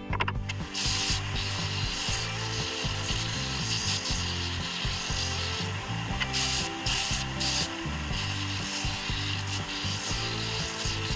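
Plywood being sanded on a Scheppach disc sander: a rasping, scraping hiss that comes and goes as the piece is pressed to the spinning disc. Background music with a changing bass line plays underneath.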